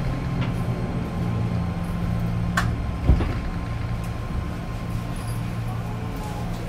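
Inside a JR East 205 series 5000 subseries EMU car: a steady low electrical and mechanical hum, with a sharp click about two and a half seconds in and a short thump half a second later.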